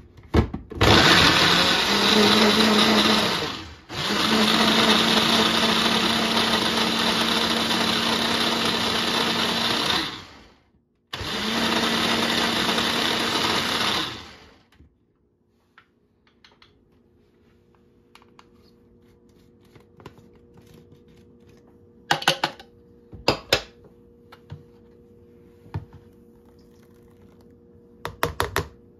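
Electric kitchen blender running in three bursts with short pauses between them, then stopping about halfway through, blending the mango sour. A few sharp knocks follow later.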